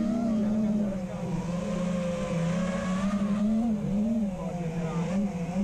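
FPV freestyle quadcopter's brushless motors and propellers whining steadily, the pitch wavering up and down as the throttle changes.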